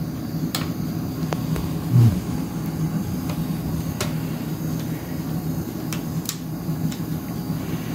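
Steady low hum, with a few light clicks and taps from the plastic parts of a notebook computer being handled while its battery is disconnected.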